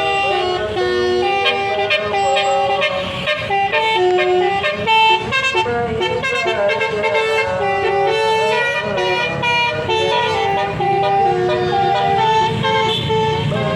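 A bus's telolet basuri musical air horn playing a melody of stepped horn notes, one after another, over a low engine rumble.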